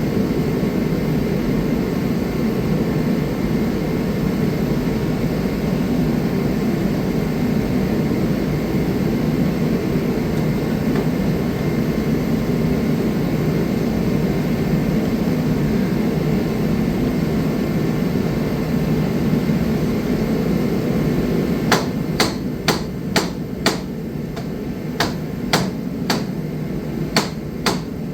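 A steady low rushing noise runs throughout. About three-quarters of the way through, a run of sharp, irregular taps starts, about two a second.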